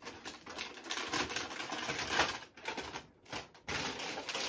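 Cardboard and plastic packaging rustling and clattering in quick irregular clicks as a boxed avionics unit is handled and packed back into its box, with a brief lull about three seconds in.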